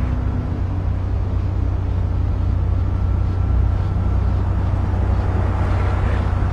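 Steady low mechanical rumble, like an engine or traffic, with a noisy hiss over it. A faint thin high tone comes and goes in the second half.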